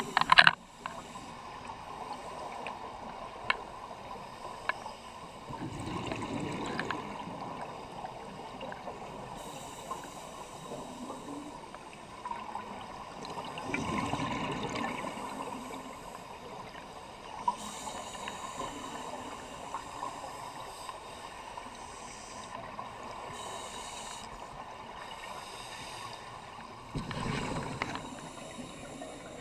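Underwater audio of scuba divers' exhaled air bubbling out of their regulators, rushing up three times over a steady watery hiss with a few small clicks.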